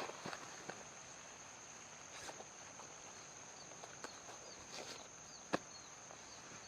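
A steady, high-pitched insect drone, with scattered light clicks and taps and a few short chirps.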